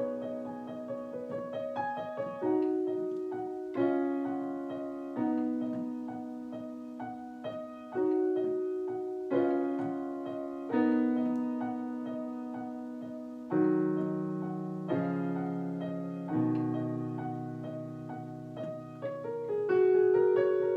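Piano playing slow chords, a new chord struck about every second and a half and left to ring and fade, with a louder chord near the end.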